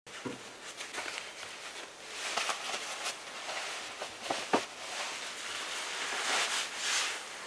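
Close rustling of clothing and handling noise, swelling twice, with scattered light clicks and taps.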